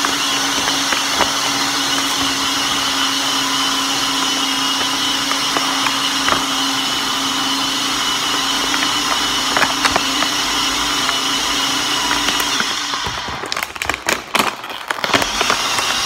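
Countertop blender running steadily while blending a fruit smoothie. It cuts off about thirteen seconds in and starts again a couple of seconds later.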